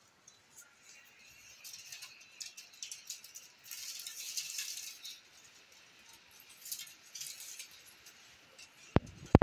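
Faint scratchy rustling and small clicks from racing pigeons shuffling and moving on a wooden perch, busiest around the middle, with two sharp clicks near the end.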